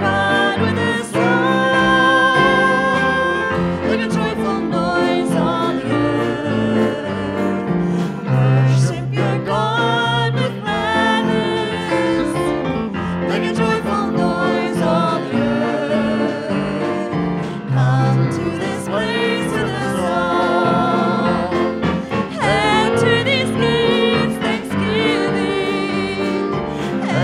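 Church congregation and song leaders singing a hymn with keyboard accompaniment and a steady bass line.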